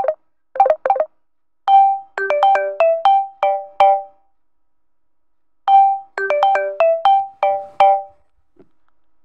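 A Samsung Galaxy J5 (2016) ringtone playing: a short melody of quickly fading, bell-like notes, played twice with a short pause between. Near the start, two brief snippets of tones are cut off, as when ringtones are previewed one after another.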